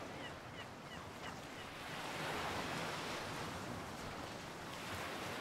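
Sea surf washing onto the beach, a steady wash that swells about two seconds in, with wind on the microphone.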